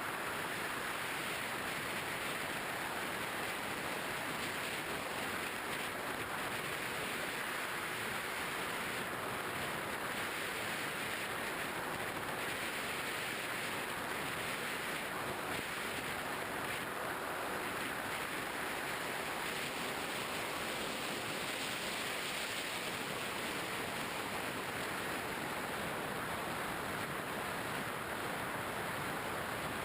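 Steady rushing noise of air streaming over a GoPro camera in its housing, carried aboard a Skywalker RC plane in flight, with no clear motor tone above it.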